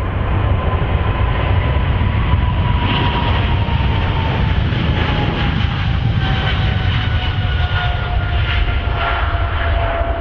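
Airliner passing close by: a steady engine roar with deep rumble and a thin engine whine that slides down in pitch as the aircraft goes past.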